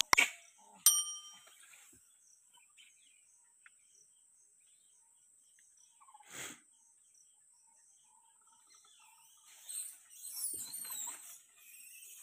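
A mouse click and then a single bell ding from a subscribe-button sound effect, the loudest sounds here. Then quiet outdoor ambience with a steady high insect-like tone, a short rustle about six seconds in, and bird chirps with more rustling near the end.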